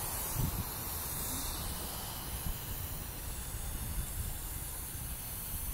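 Air hissing steadily out of a vehicle tire's valve as the tire is let down to a lower pressure for driving an off-road trail.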